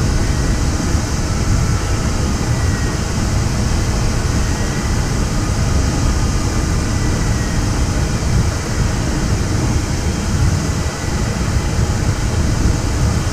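Steady rush of airflow around an ultralight sailplane's cockpit in gliding flight, with a heavy low rumble of wind on the microphone.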